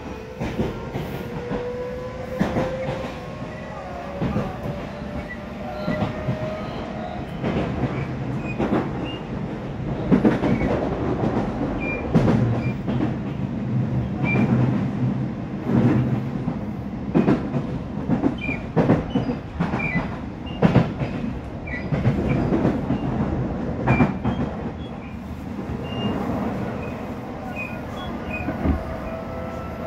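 Odakyu 3000 series electric train heard from inside a motor car: the whine of its Mitsubishi IGBT-VVVF inverter and fully enclosed traction motors rises in pitch as it accelerates, over the rumble of wheels on rail. The whine fades after several seconds, leaving rolling noise with repeated clacks from the wheels over rail joints, and a rising motor whine starts again near the end.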